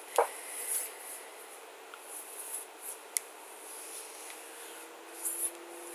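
Faint rustling with a sharp click about three seconds in, over a low steady hum.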